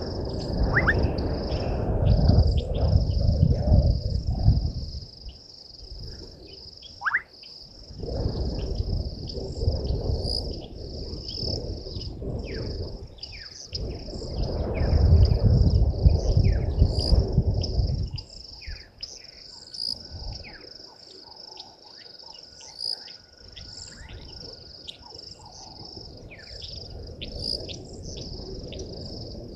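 A steady high-pitched insect chorus with scattered short bird chirps and a couple of rising whistles. Under it, a low rumble swells and fades in three long waves and dies away about two-thirds of the way through.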